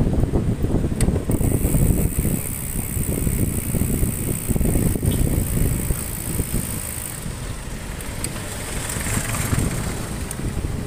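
Wind buffeting the microphone while riding along a city street, a gusty low rumble with road and traffic noise underneath. A steady high hiss joins for a few seconds in the middle.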